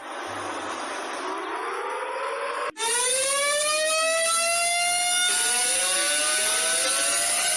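Warning siren winding up, its pitch rising in a slow glide. About three seconds in it cuts out for an instant, then a louder rise starts, and a second rising tone joins it about two seconds later.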